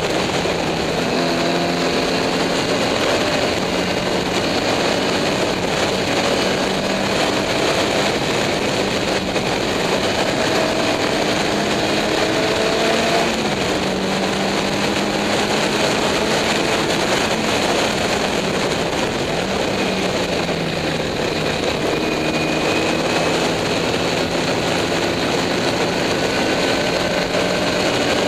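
Open racing car's engine running hard on track, heard from an onboard camera, its pitch climbing slowly and dropping back several times as it works through the gears, over heavy wind and road noise.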